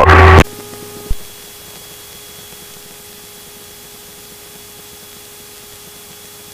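A short click about a second in, then steady hiss with a faint thin hum from the cockpit radio and intercom audio feed of a Piper PA-28 in flight.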